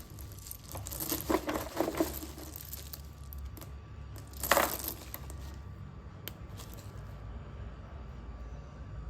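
Slate pencil crunching: a quick run of crisp crunches in the first two seconds, one loud crunch about halfway through, and a single click later, over a steady low hum.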